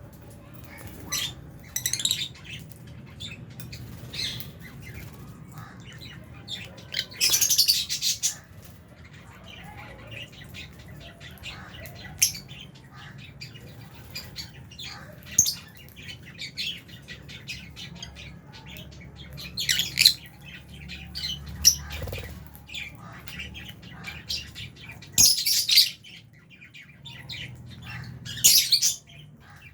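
A flock of lovebirds in an aviary, including Fisher's lovebirds, keeps up busy, shrill chirping and squawking. Three louder bursts of squawking stand out, each about a second long.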